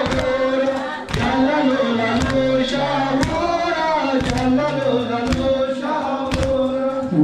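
Group of voices chanting a noha (Muharram lament) in unison, with sharp hand-on-chest beats of matam falling about once a second in time with the chant.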